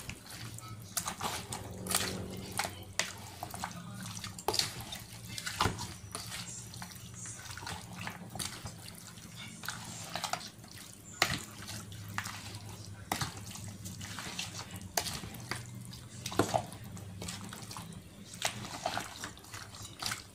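Wet squelching and irregular knocks of a plastic spatula stirring marinated chicken pieces in a plastic basin, working the marinade through the meat, over a low steady hum.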